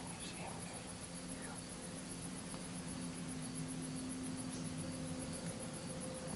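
Crickets chirping in a rapid, even pulse, over a steady hiss and a faint low hum.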